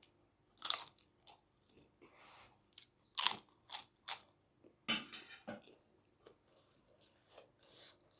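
Crisp roasted papad being bitten and chewed close to the microphone: about six sharp crunches at irregular intervals, with softer chewing between.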